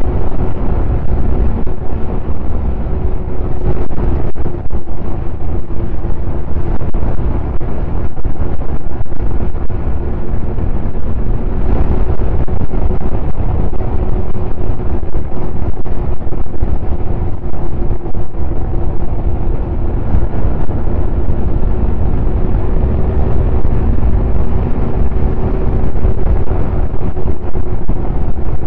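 Snowmobile engine running at a steady speed with a slight drift in pitch, under heavy wind rumble on the microphone.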